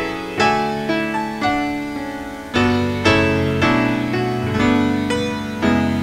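Background music: a slow keyboard melody of single notes struck about twice a second, each ringing and fading.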